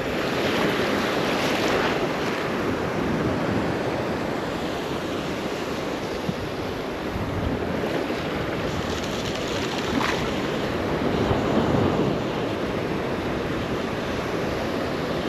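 Gulf surf washing onto the beach, with wind buffeting the microphone: a steady rush that swells a couple of times.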